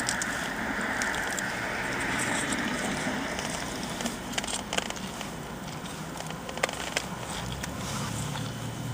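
A steady hiss with a few sharp crinkles and clicks from about four seconds in, from handling a foil- and paper-wrapped fast-food cheeseburger.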